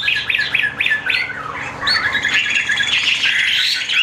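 Caged Chinese hwamei (họa mi) songbirds calling in a dense, unbroken run of short, quickly repeated whistled notes.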